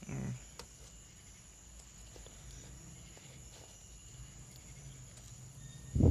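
A person chewing cornstarch chunks, with soft mouth sounds, then biting into a piece with a loud crunch near the end.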